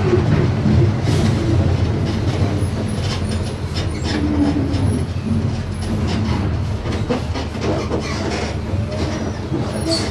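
Volkswagen 17.230 EOD bus running, with a steady low engine drone and scattered clicking rattles.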